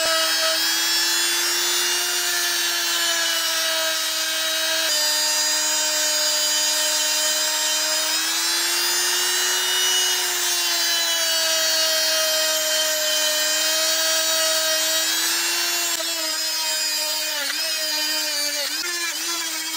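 Small electric power tool motor running steadily at high speed, its pitch wavering and dipping in the last few seconds as the tool is pressed into the work.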